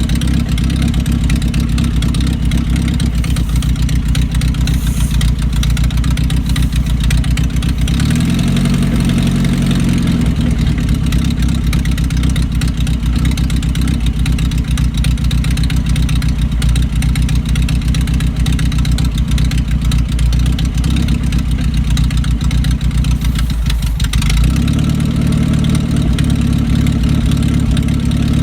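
1982 Datsun wagon's four-cylinder engine running steadily at idle, a little raggedy after repairs that cured a failure to idle. Its note shifts briefly about eight seconds in and again near the end.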